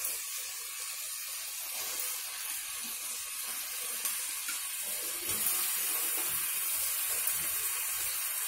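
Raw chicken pieces sizzling in hot oil and masala in a pressure cooker: a steady hiss that grows louder about five and a half seconds in, after a short knock at the start as the chicken goes in.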